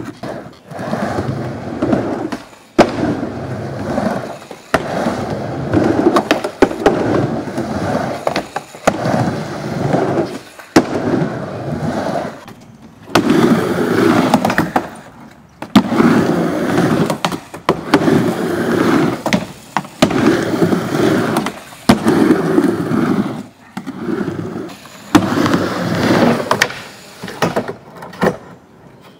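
Skateboard wheels rolling back and forth across a plywood mini ramp, the rumble swelling and fading with each pass about every two seconds. Sharp clacks from the board striking the wood and coping break in now and then.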